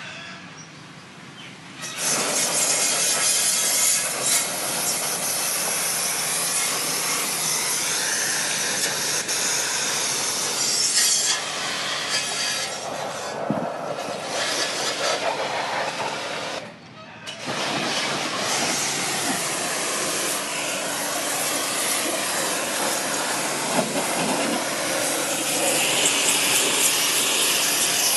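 Pressure washer spray gun jetting water onto a window air conditioner's coils: a loud, steady hissing spray. It starts about two seconds in, cuts out briefly a little after halfway, then starts again.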